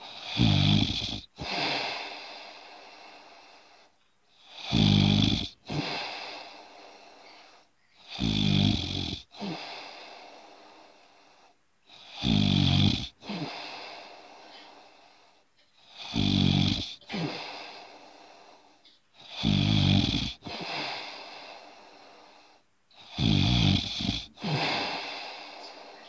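Snoring in a slow, even rhythm: a loud snore about every four seconds, seven in all, each followed closely by a shorter, softer one.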